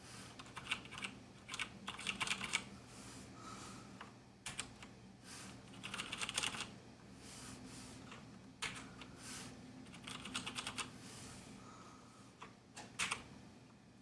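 Flurries of keypresses on a 1stPlayer Steampunk mechanical keyboard with its own black "G switch" Cherry MX Black clones: short runs of quick clicks and clacks, about seven bursts, as Function key combinations are pressed to cycle the backlight modes.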